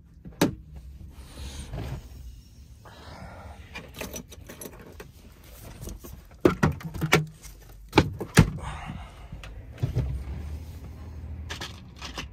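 Handling noises in a truck cab: a string of sharp clicks and knocks as a phone and a plastic gum jar are picked up and set down on the dashboard, over a low steady hum.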